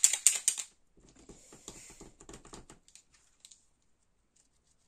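White Posca paint marker being shaken, its mixing ball rattling in rapid, even clicks that stop under a second in. Softer scratchy handling sounds follow for about two seconds.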